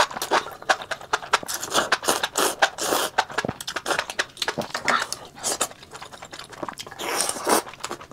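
Close-miked eating: a slurp of spicy enoki mushrooms at the start, then wet chewing with many quick clicks and smacks, and another brief noisy rush near the end.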